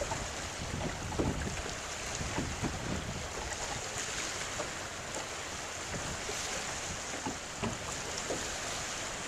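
Wind buffeting the microphone over choppy salt water, with small waves lapping and slapping in irregular short splashes.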